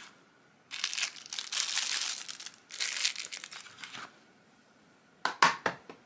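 A cardboard knife box being slid open and the knife unpacked, with two stretches of rustling and crinkling packaging, then a few sharp clicks near the end.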